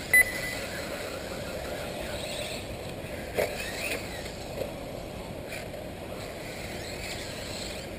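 Electric 1/8-scale RC buggies racing on a dirt track: motor whine rising and falling over a steady rush of noise. A short, loud high beep sounds just after the start, and a knock comes about three and a half seconds in.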